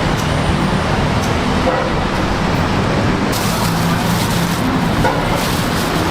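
Steady, loud street-stall din with a rumble like road traffic; a brighter hiss joins a little past halfway.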